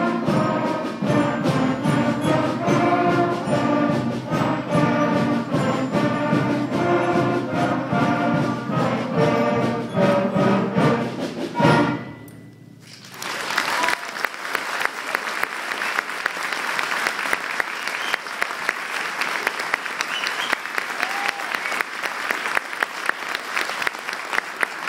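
A sixth-grade concert band plays the closing bars of a march, with flutes, clarinets and brass ending on a final chord about twelve seconds in. After a brief pause the audience applauds steadily.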